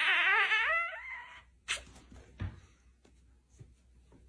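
A dog whining in a long, warbling call that wavers up and down in pitch and trails off about a second in. Two faint short knocks follow.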